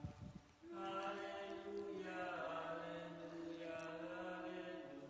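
Faint music of long held chords. It starts after a short break near the beginning and changes chord a couple of times.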